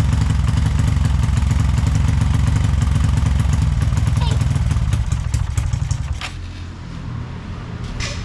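A Honda Supra X motorcycle engine, bored out to 185 cc, running steadily and loudly while its carburettor is being tuned. The level falls away sharply about six seconds in, and a few clicks follow.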